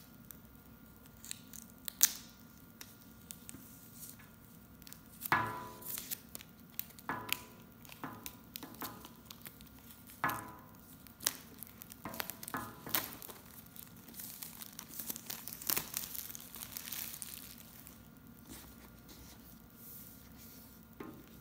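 Cardboard iPad mini retail box being handled and its paper packaging torn open by hand: irregular tearing, crinkling and scraping, with scattered clicks and one sharp click about two seconds in. The sounds are busiest through the middle.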